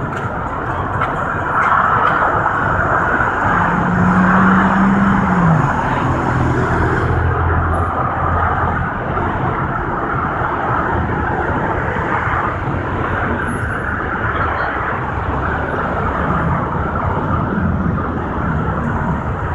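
Steady freeway traffic: many cars passing below, their tyres and engines blending into a dense, even rush. About four seconds in, a low held note rises out of it for a couple of seconds and bends down as it stops.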